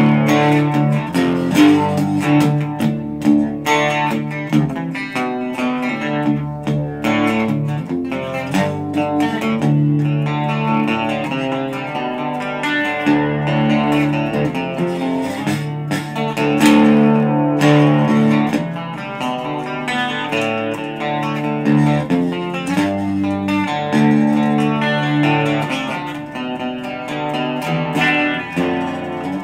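Gibson Les Paul electric guitar played through a Digitech RP55 multi-effects processor: strummed chords and picked notes with frequent sharp pick attacks.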